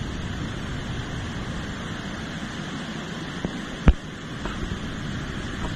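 Steady rushing of a fast-flowing river. A single sharp knock stands out about four seconds in, with a few fainter clicks around it.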